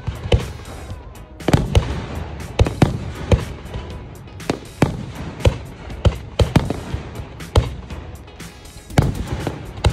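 Fireworks shells bursting overhead in a rapid, irregular series of sharp bangs, roughly two a second, with music playing underneath.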